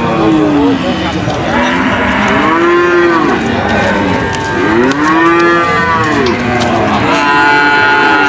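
Cattle mooing repeatedly, loud long calls that rise and then fall in pitch, some overlapping one another.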